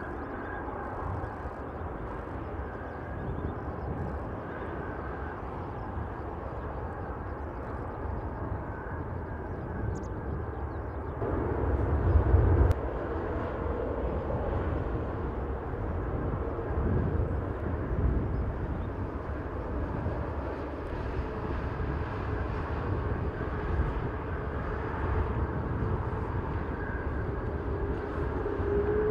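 Airbus A380-841's Rolls-Royce Trent 970 jet engines running at low taxi thrust: a steady rumble with a faint whine that grows stronger toward the end. About eleven seconds in there is a brief, louder low rumble.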